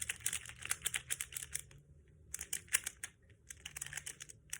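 A Pyraminx twisty puzzle being turned quickly by hand, its plastic pieces clicking and rattling in three quick runs of clicks, scrambling the puzzle.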